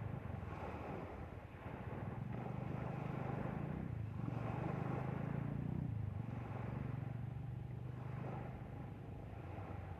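Boat engine running steadily with a low hum, over the rush of water past the hull. The engine grows louder for a few seconds in the middle.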